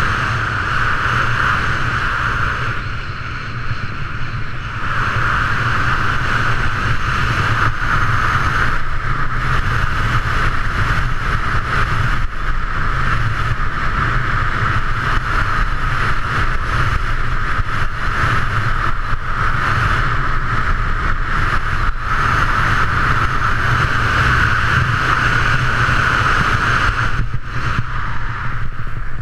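Skis running fast on a groomed piste: a steady scraping hiss of the ski edges on the snow, with wind rumbling on the action camera's microphone. It eases briefly a few seconds in and again near the end.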